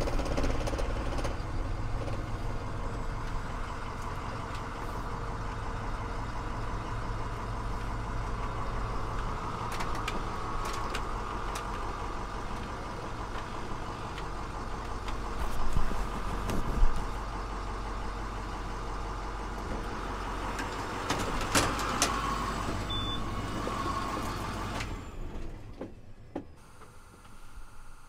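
Converted school bus driving along a road, heard from inside the cab: steady engine and road noise with rattles and a few knocks, the loudest two about halfway through. The noise drops away about three seconds before the end.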